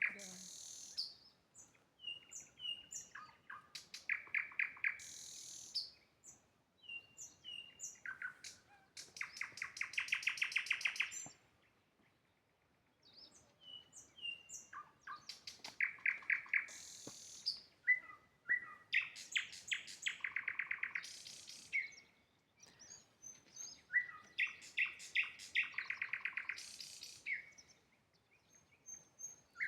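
Nightingale singing: a run of separate song phrases mixing short whistled notes with fast, rattling trills, with a pause of about two seconds near the middle.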